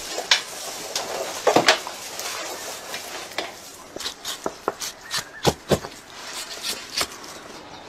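Irregular clicks, taps and knocks of a knife and gloved hands skinning a crocodile carcass on a steel table, busiest in the second half, with two deeper knocks about five and a half seconds in.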